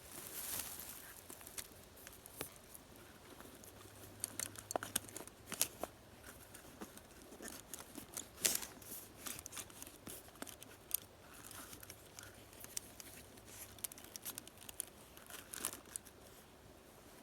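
Footsteps through dry leaves and brushy undergrowth: irregular crackling and the sharp snaps of small twigs breaking, with the loudest snap a little past the middle.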